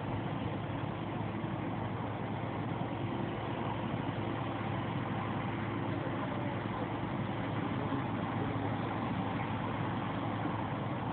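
Claas Lexion 550 combine harvester running with a steady, unbroken mechanical drone.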